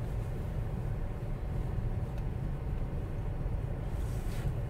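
Steady low rumble of a car's engine and tyres heard from inside the cabin as it moves slowly, with a brief hiss near the end.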